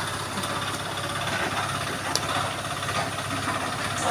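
An engine running steadily with an even low rumble, under a constant background hiss.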